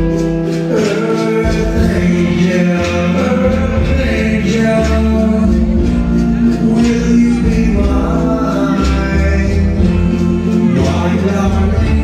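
Viennese waltz music with a singing voice over a steady bass accompaniment.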